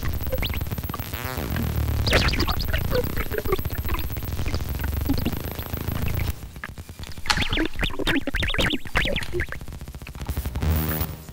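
Chaotic electronic sound from a Benjolin synthesizer and a Fourses touch-plate synth: a low drone under scattered chirps, clicks and pitch glides, thinning out briefly about six seconds in.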